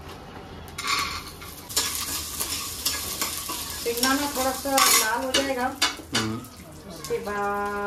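Peanuts being stirred and roasted in a little oil with a steel spatula in a stainless steel pan: scraping and clattering of the metal and the nuts, with a light sizzle. A brief pitched sound comes partway through, and a steady tone near the end.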